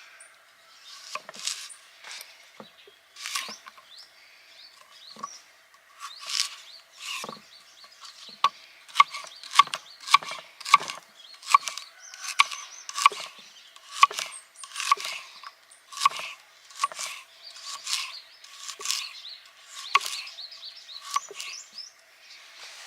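Repeated chopping strikes, a blade hitting wood, about one a second and a little quicker and louder in the middle stretch, each strike with a short ringing note.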